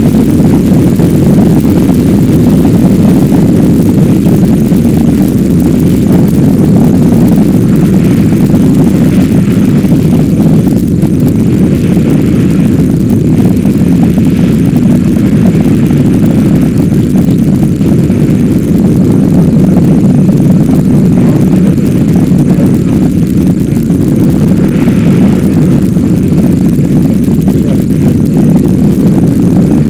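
Zenit rocket's engines during ascent: a loud, steady, low rumble.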